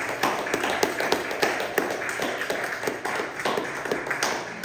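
Audience applauding, with one person's hand claps standing out close by.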